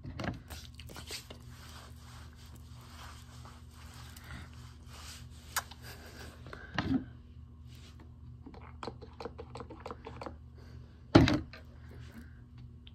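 Rustling, scraping and knocking as a person moves and brushes right against the recording device. There is a sharp thump about eleven seconds in and smaller knocks at the start and around seven seconds, over a faint steady hum.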